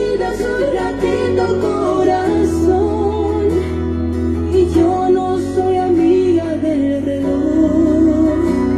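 Music: a song with a sung melody over guitar and bass, the bass note changing every two or three seconds.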